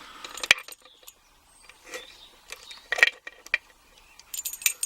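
Small metal clicks and clinks of lock-picking tools and a brass padlock being handled: a sharp click about half a second in, another about three seconds in, and a quick run of small clicks near the end.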